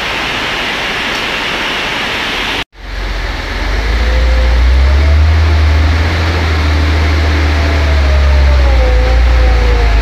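Heavily overloaded dump truck's diesel engine pulling away under load: a deep, loud rumble with a faint whine that wavers up and down. Before a sudden break about a quarter of the way in, a steady hiss covers the engine.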